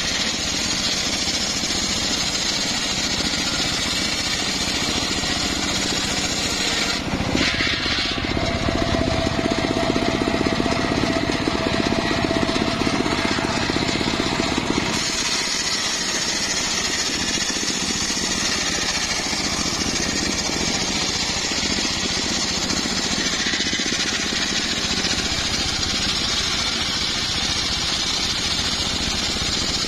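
Homemade circular sawmill's large spinning blade ripping a log lengthwise into planks, running with a steady, loud machine noise. For several seconds in the middle the sound changes and grows a little louder, with a faint steady whine.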